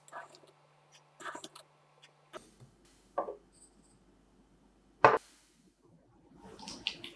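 A wooden spoon scoops instant coffee granules from a glass jar and tips them into a glass beaker, making small scrapes and granule rattles. About five seconds in there is one sharp knock, the glass beaker set down on the table, and it is the loudest sound.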